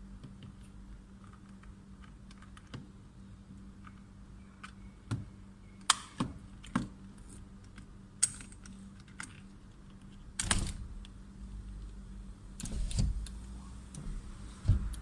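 Irregular sharp plastic clicks and taps from handling the new power window master switch and pushing its wiring harness connector in, heaviest in the second half, over a faint steady hum.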